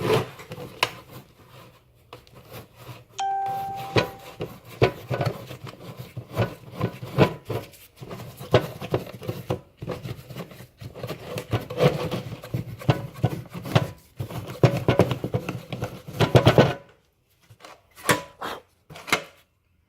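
Irregular knocking, tapping and rattling as the old air-conditioning and heater boxes are handled and cleaned, with a short ringing tone about three seconds in. It thins to a few sparse clicks near the end.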